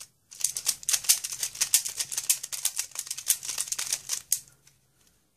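Moyu Pyraminx being turned quickly by hand: a dense run of plastic clicks and clacks for about four seconds that then stops. The puzzle is dry, not yet lubricated or broken in.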